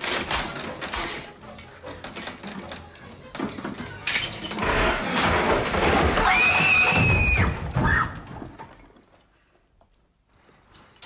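Horror-film crash and breaking sounds, clattering at first and loudest between about four and eight seconds in. A single shrill cry is held for about a second over the crash, then it all dies away to near quiet.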